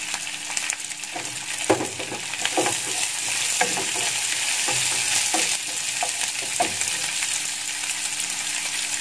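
Baby corn and vegetables sizzling in hot oil in a non-stick frying pan while a wooden spatula stirs them. Sharp knocks and scrapes of the spatula and pieces against the pan come between about one and seven seconds in, over a steady hiss.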